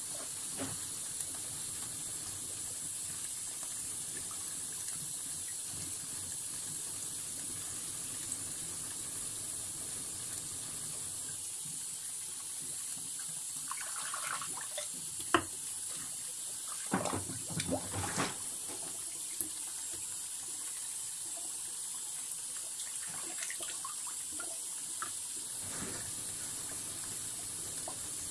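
Tap water running steadily into a sink. A few sharp clacks and a short clatter come around the middle, as whetstones are handled.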